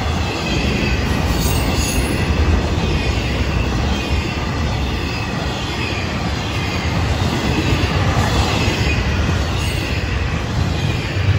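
Florida East Coast Railway intermodal freight train rolling past at close range: a steady rumble of steel wheels on the rails as double-stack container cars and trailer flatcars go by, with a faint high wheel squeal over it.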